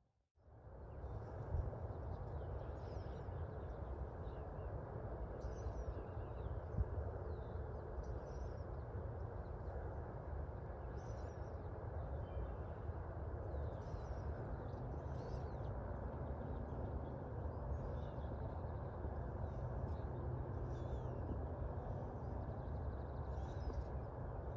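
Outdoor ambience: a steady low hush with faint, short bird chirps scattered throughout, fading in just after the start.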